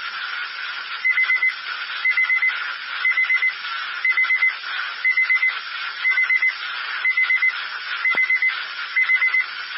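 A weather radio receiver's alert alarm beeping in quick groups of four, about once a second, over steady radio hiss. The alarm is set off by Weatheradio Canada's monthly alert test.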